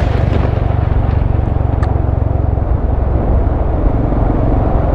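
Motorcycle engine running steadily at cruising speed, with road and wind noise on the handlebar-mounted camera.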